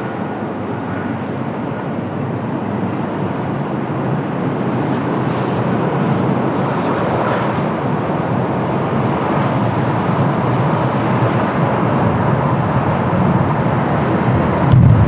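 Airliner engines on approach: a steady rushing jet-like noise that grows gradually louder as the aircraft comes closer.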